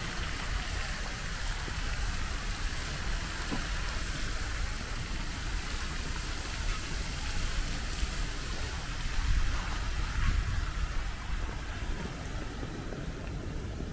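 Pond fountain jet splashing back into the water, a steady hiss of falling water, over a low rumble.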